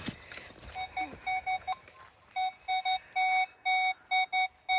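Nokta Legend metal detector beeping at one pitch over a target, in a broken, irregular run of short beeps and then longer ones: the jumpy, bouncy signal the detectorist reads as iron. A single knock right at the start.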